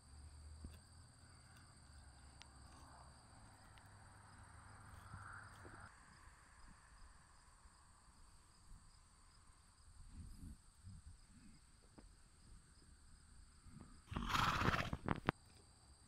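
A grazing horse gives one short, noisy snort of about a second near the end. The rest is faint outdoor background with a few soft low thumps.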